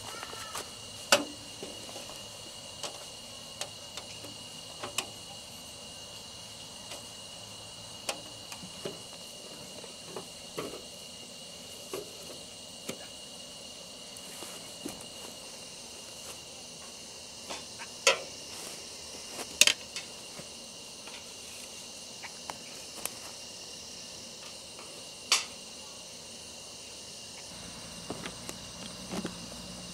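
Crickets chirping steadily in the night, with sharp knocks and clacks every few seconds as a folding camp table is unfolded and things are set down on it.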